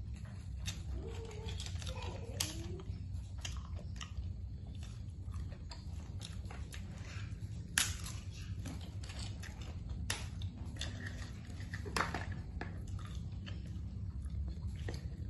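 A person eating cooked clams and rice by hand: chewing and mouth sounds with scattered sharp clicks, the loudest about eight and twelve seconds in, over a steady low hum.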